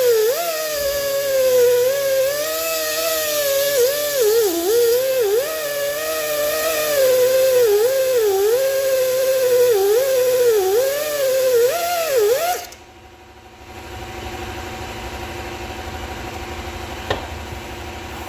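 Die grinder with a carbide cutter cutting a slot into the hardened steel race of a John Deere 830 clutch bearing: a high whine whose pitch keeps dipping as the cutter bites and recovering as it frees up. It cuts off suddenly about 12½ seconds in, and a steadier, lower hum follows.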